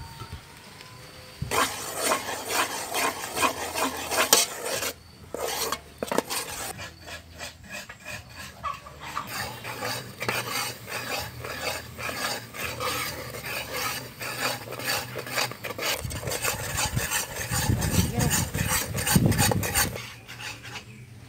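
Metal spoon stirring and scraping around an aluminium pot of thick, bubbling brown sauce: a quick, continuous run of scrapes with a couple of brief pauses, heavier and lower near the end.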